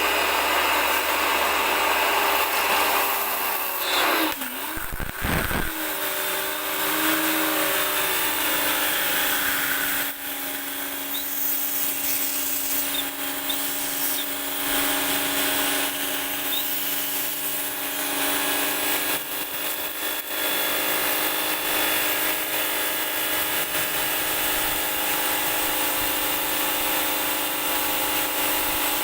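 H&L ABW VGS 70 high-pressure jet cleaner running and spraying, its brushed (non-induction) motor and pump making a steady loud whine. About four to six seconds in, the motor note dips and then settles at a new steady pitch.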